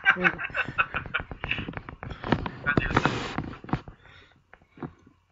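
People laughing in short, irregular bursts, the laughter dying away about four seconds in.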